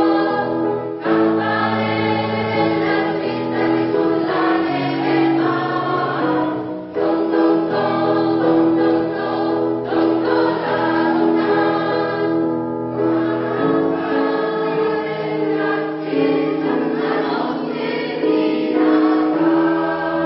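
Polyphonic choir singing in sustained chords, phrase by phrase, with short breaks between phrases.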